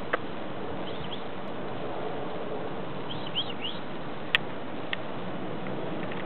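Small birds chirping, a couple of quick high chirps about a second in and a short cluster around three seconds in, over a steady background hiss. A sharp click a little past the middle is the loudest sound, with a smaller one about a second later.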